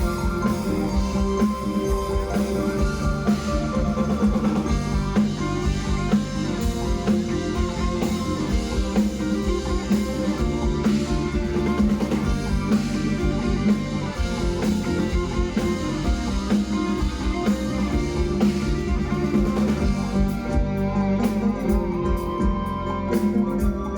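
Band music with electric guitar and drum kit, played without singing: a steady instrumental passage.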